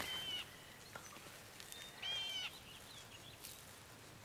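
An animal calling twice, short nasal calls about half a second long: one at the very start and another about two seconds in, with faint chirps and clicks between them over quiet outdoor background.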